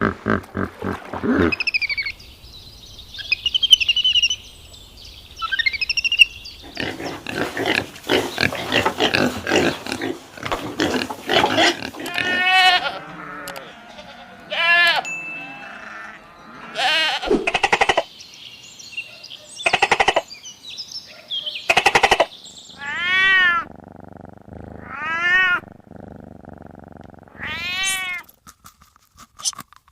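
A series of animal calls: several short, pitched cries that rise and fall, with high chirping sounds near the start.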